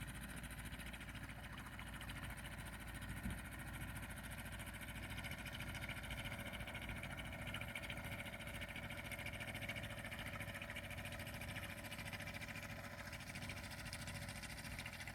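A small boat's outboard motor running at a steady speed.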